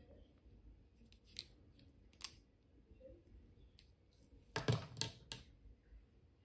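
Hard plastic pens handled and knocked together: a few scattered sharp clicks, then a louder quick run of clacks about four and a half seconds in.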